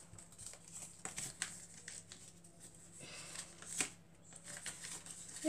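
Folded A4 paper rustling and creasing as it is handled and folded, with scattered light crackles; the sharpest comes nearly four seconds in.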